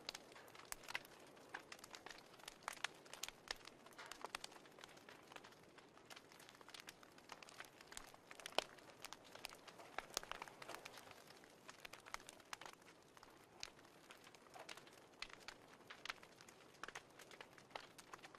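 Fireplace crackling: irregular soft pops and snaps over a faint hiss.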